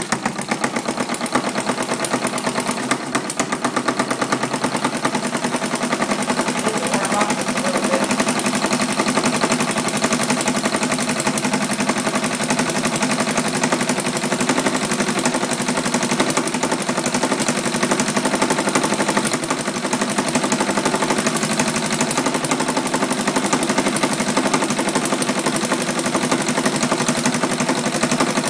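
Small homemade spark-ignition model engine with an articulated connecting rod and a finned air-cooled cylinder, running on propane: a rapid, even train of sharp firing pops that holds steady throughout.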